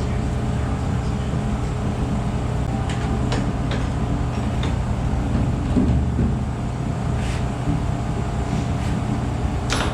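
Polaris 525 ATV's single-cylinder engine idling steadily, with a few light clicks and knocks over it.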